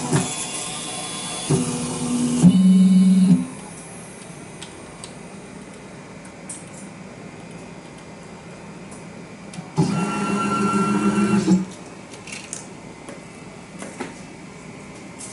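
IC polishing machine's motors buzzing in bursts as the milling head moves: one burst running up to about three and a half seconds in, another from about ten to eleven and a half seconds, with a faint steady hiss between. Small clicks near the end as the board clamps are handled.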